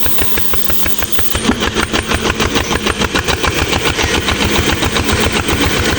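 Old engine running with an even, regular firing beat that quickens and grows a little louder about a second and a half in.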